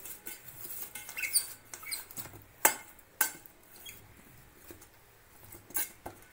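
A brush rubbing around the inside of an aluminium cake pan as it is greased with oil, with short high squeaks about a second in and a few sharp taps against the metal.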